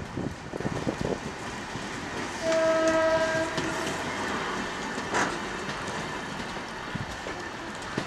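A departing passenger train hauled by a GM GT22 diesel locomotive: the coaches roll past with wheels clacking over the rail joints, then a single horn blast of a little over a second sounds about two and a half seconds in over the steady rolling rumble. There is one sharp clank about five seconds in.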